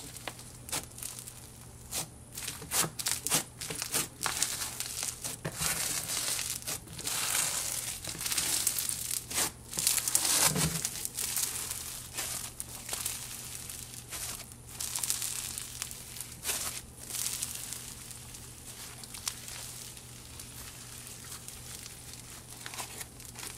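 Hands kneading and stretching microfloam slime, glue slime packed with tiny foam balls, giving a dense crunchy crackling as the beads are squeezed and pulled. The crackling comes in uneven clusters and is loudest about halfway through.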